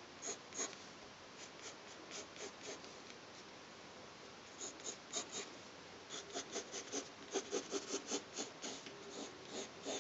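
Graphite pencil scratching on paper in short strokes, sparse at first, then a quicker run of about four strokes a second from about six seconds in.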